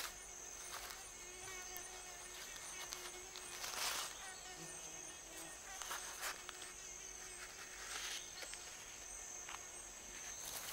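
Tropical rainforest ambience: a steady high-pitched insect drone, with a few soft rustles of leaves and forest-floor litter as a leaf is handled and folded.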